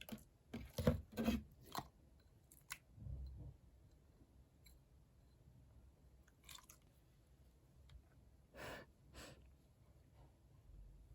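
Clay-mixed jiggly slime being squeezed and pulled by hand: a few separate short squishes and crackles, a cluster of them at the start and two more near the end.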